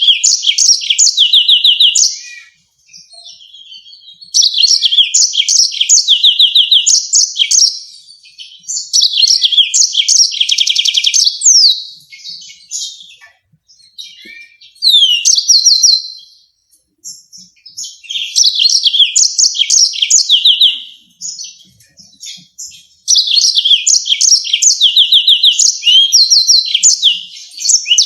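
Yellow-fronted canary singing: rapid high trills and sharp chirped phrases in bursts of a few seconds, with short pauses between the bouts.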